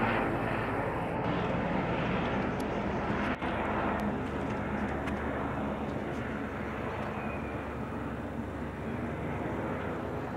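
Helicopter flying low overhead: rotor and engine noise, loudest at the start and slowly fading as it moves away.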